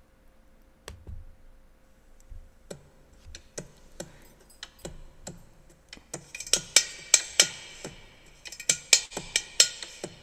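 A run of sharp, irregular clicks and taps, sparse at first and then denser and louder from about six seconds in.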